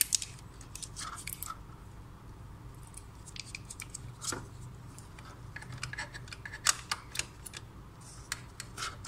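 Irregular small plastic clicks and rattles of Epson L1800 ink dampers being handled and pushed back onto the print head, with a few sharper clicks.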